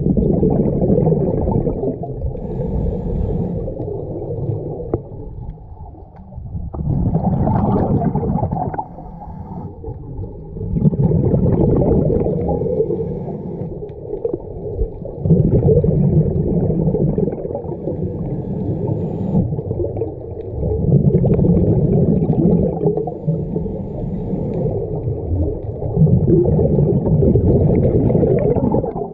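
Scuba diver breathing through a regulator underwater: a muffled, low gurgle of exhaled bubbles swells every four to five seconds, with quieter stretches between breaths.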